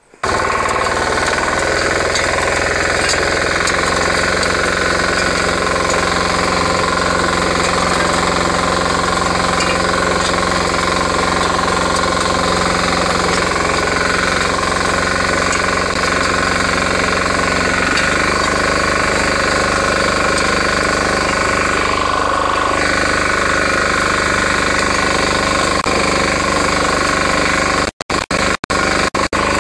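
Diesel engine of a Kisan Kraft power weeder running steadily under working load, its note shifting slightly about eighteen seconds in. The sound cuts out briefly a few times near the end.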